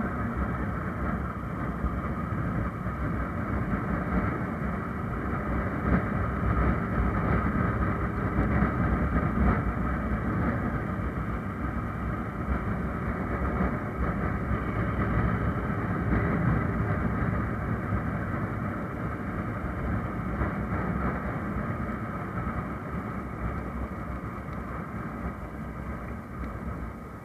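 Honda motorcycle's engine running while riding along a city road, mixed with steady road and wind noise; it grows quieter near the end.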